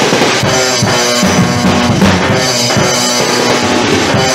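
Loud recorded heavy rock song in a stretch without vocals: a drum kit with bass drum pounding under distorted guitar.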